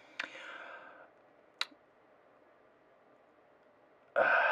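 Two short clicks, the first followed by a soft breathy noise, then a quiet stretch, then a loud breathy rush of air near the end, like a sharp breath at the microphone.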